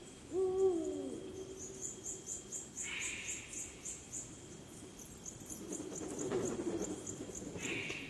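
Eurasian eagle-owl giving one deep hoot about half a second in, falling in pitch at its end. Insects chirp in a steady high rhythm of about three pulses a second, and short hissy calls come twice.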